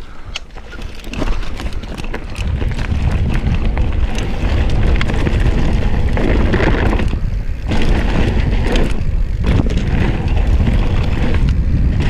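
Wind buffeting the GoPro's microphone while a mountain bike rolls fast down a dirt trail, with tyre noise and frequent knocks and rattles over bumps. The noise builds over the first two seconds as the bike picks up speed, then holds steady.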